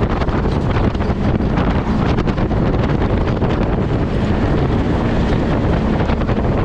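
Polaris RZR side-by-side driving off-road, its engine running steadily under heavy wind noise on the microphone.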